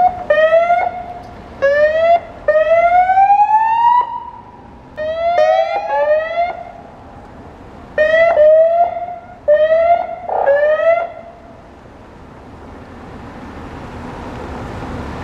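Police car sirens sounding a string of short rising whoops, each sweeping up in pitch, with one longer rising wail about three seconds in. The sirens stop about eleven seconds in, leaving a growing rush of car engine and tyre noise as another police car drives up.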